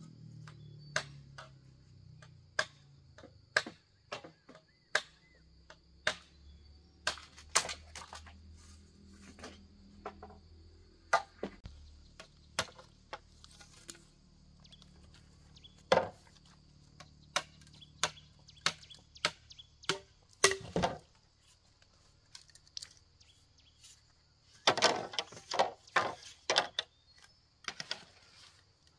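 A blade chopping bamboo: a series of sharp, irregular strikes about one a second, with a quicker flurry of chops near the end, over a steady high hiss.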